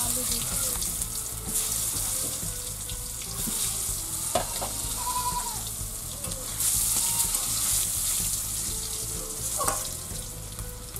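Whole potatoes sizzling in hot oil in an aluminium kadai, stirred with a metal spatula, with two sharp clicks of the spatula against the pan. The sizzle is loudest at the start and swells again about seven seconds in.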